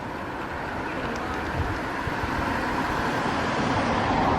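Road traffic noise: a passing vehicle, growing steadily louder toward the end.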